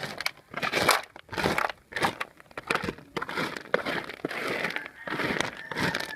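Small cooked clams in their shells being scooped and stirred, the shells clattering and crunching against each other in irregular bursts with sharp clicks.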